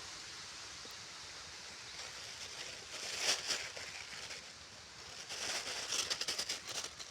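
Two bursts of rustling, handling-type noise, one about three seconds in and a longer, rapidly crackling one near the end, over a steady background hiss.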